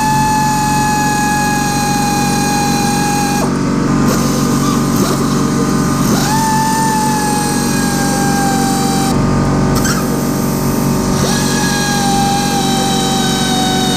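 Handheld power tool, like a drill or driver, spinning with a steady high whine. It stops about three and a half seconds in, restarts about six seconds in, stops again near nine seconds and starts once more near eleven, each start rising quickly in pitch.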